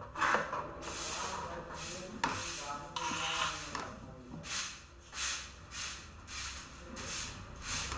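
Metal palette knife scraping and smoothing whipped cream on a cake on a hand-spun turntable. In the second half the strokes settle into repeated swishes about every two-thirds of a second.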